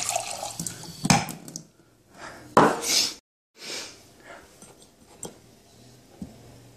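Kitchen tap running water into a drinking glass for about a second and a half, then a knock and a couple of short noisy bursts. After a brief cut-out there are only faint handling sounds with a few soft clicks and a low thump.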